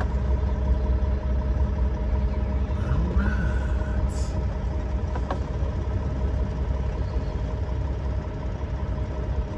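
Semi-truck's diesel engine running at low speed, a steady low rumble heard inside the cab.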